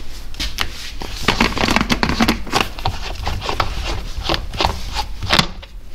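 Plastic paint cup of a gravity-feed HVLP spray gun being handled and fitted to the gun: a busy run of irregular clicks, taps and plastic rustling, with a sharper click near the end.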